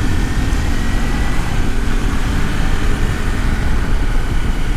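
Steady wind rush and motorcycle engine noise picked up by a helmet-mounted microphone while riding a Kawasaki Versys-X 300 in city traffic.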